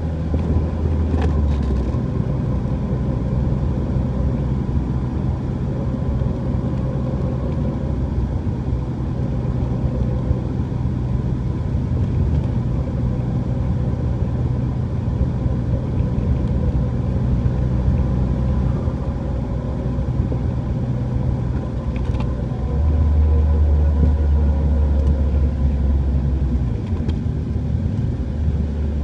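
Dodge Neon SRT-4 on the move, a steady humming whine over the road and engine noise. The owner suspects a bad wheel bearing, the hum coming whenever the steering is turned off centre. A deeper drone grows louder for a few seconds near the end.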